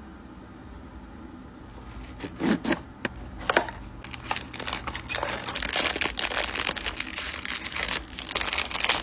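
Packaging crinkling and rustling as it is handled and torn open, starting about two seconds in, with sharp crackles and clicks throughout.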